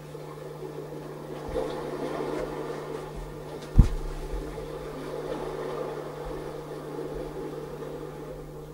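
A steady low hum under a rushing noise, with one dull thump a little under four seconds in.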